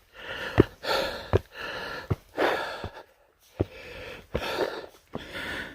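A man breathing hard, about six heavy breaths in and out, winded from climbing a steep trail. Short knocks about once a second, like footfalls, come between the breaths.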